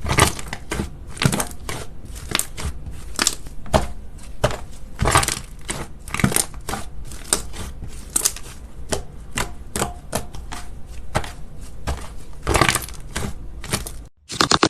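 Slime being pressed and worked by hand, giving irregular sharp clicks, pops and crackles a second or so apart. Near the end there is a brief break, then denser crackling.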